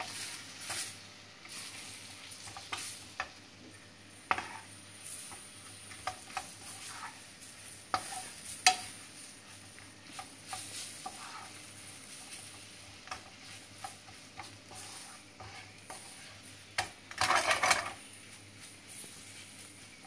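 Spatula stirring and scraping flour-coated green peppers in a nonstick frying pan, with a faint sizzle as the flour toasts in the oil. Scattered clacks of the spatula against the pan, with a louder scrape near the end.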